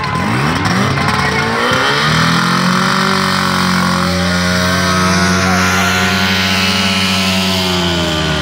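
Portable fire-brigade motor pump's engine revving up over the first two seconds, then running steadily at high speed while it pumps water.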